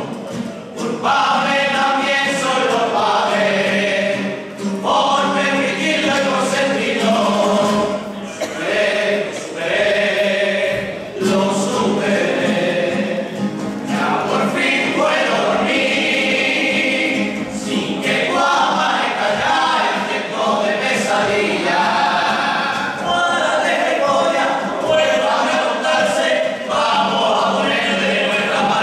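A Spanish carnival comparsa singing a song in chorus, many voices together, in phrases with short breaks between them.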